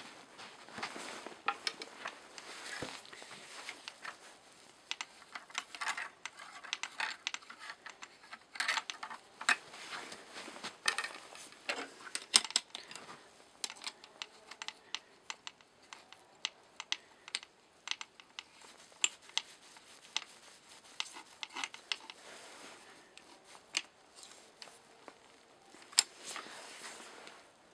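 Irregular light clicks, taps and scrapes of a screwdriver and loose cast-iron parts of a Jøtul 606 wood stove being worked and handled during dismantling.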